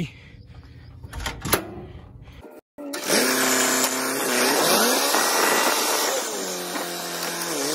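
Tractor diesel engine running as the tractor drives. For the first few seconds there is a low steady hum with a couple of clicks, then after a short break the engine is loud, its pitch rising and falling.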